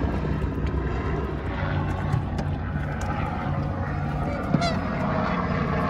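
Black swans calling with soft honks close by, with one short, sharper call about four and a half seconds in, over a steady low motor drone.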